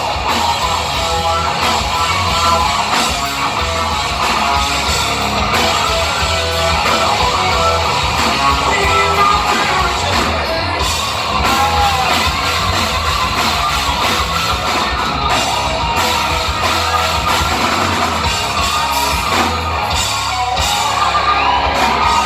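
Live hard rock band playing loudly: electric guitar leading with bent, gliding notes over bass and drum kit.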